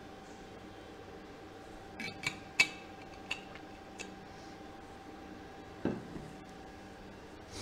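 Light clicks and clinks of small hard objects, a few in the second to fourth seconds with the sharpest about two and a half seconds in, then a duller knock near six seconds, over a faint steady hum.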